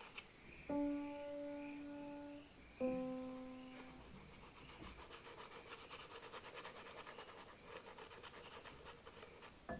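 Two ringing musical notes, one after the other in the first four seconds. Then a conte stick scratches across toothed pastel paper in quick, short shading strokes.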